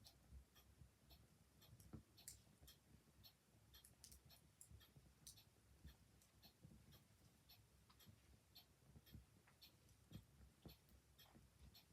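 Faint wood fire crackling in a hearth: small, irregular pops and snaps over a soft low rumble.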